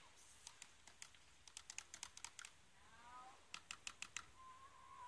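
A small metal spoon clicking lightly against a drinking glass: a quick run of light taps, then another short group of taps about three and a half seconds in.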